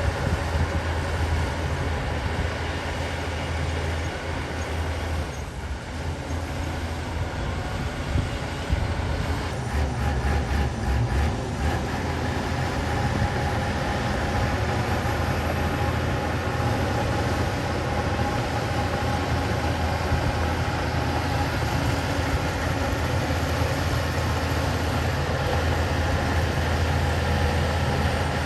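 Heavy diesel engine of a crawler bulldozer running steadily under load, with a short run of rapid clanks about ten seconds in.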